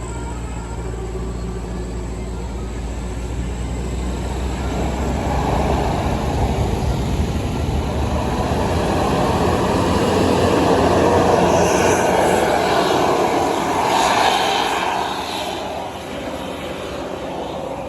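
A bus driving past, its engine and tyre noise swelling over several seconds to a peak about two-thirds of the way through, with a burst of higher hiss near the peak, then dropping away fairly quickly.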